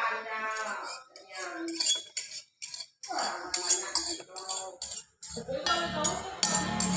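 Toy pots, pans and utensils being handled in pretend cooking, clinking and clattering with a run of sharp taps.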